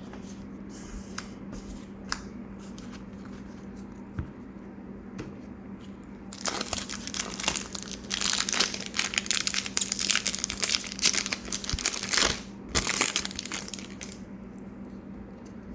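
Faint handling clicks, then the foil wrapper of a Pokémon booster pack crinkling loudly for about eight seconds as it is torn open and crumpled, starting about six seconds in.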